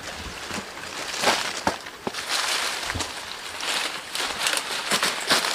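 Leaves and branches rustling and swishing as someone pushes through dense undergrowth, in irregular bursts with scattered sharp twig clicks.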